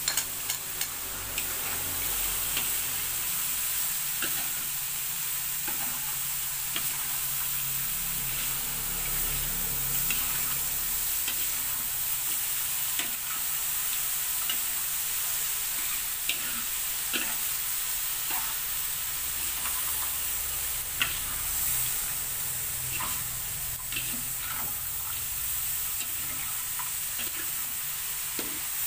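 Bitter melon and anchovies sizzling as they are stir-fried in a metal wok, with a steady hiss and a metal spatula scraping and clinking against the pan every second or so.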